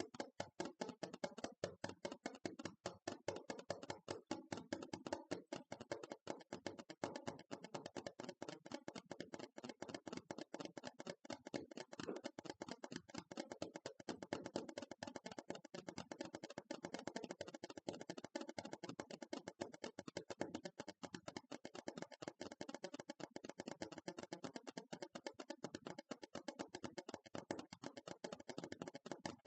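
ASMR tapping: fast, continuous taps on a hard object, many a second, without pause.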